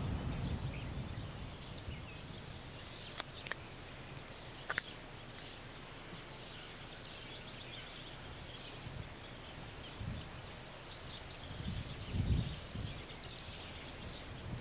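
Rumble of a freight train going away over a steel bridge, fading out in the first couple of seconds, leaving quiet outdoor ambience with faint high chirping. A few sharp clicks come around four seconds in, and a low thud about twelve seconds in.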